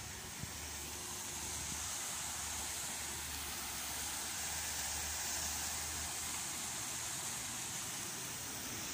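Water jets of an ornamental fountain splashing into a shallow pool: a steady hiss.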